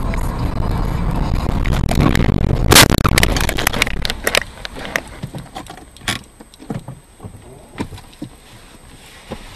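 Car crash: steady low driving rumble, then a loud collision nearly three seconds in, followed by a second or two of clattering knocks and scraping that thin out into a few scattered knocks.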